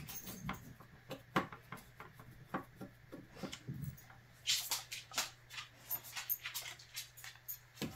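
Small clicks and taps of a screwdriver backing out the forearm screw of a Daisy 922 air rifle, and of the rifle's parts being handled. The clicks come in quick, irregular runs, thickest in the second half.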